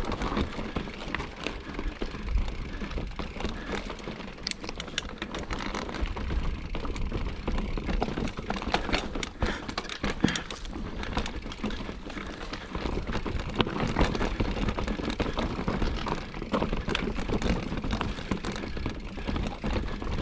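Mountain bike riding down a rock-strewn trail: a constant rumble with many irregular clatters and knocks from tyres, suspension and drivetrain over the rocks.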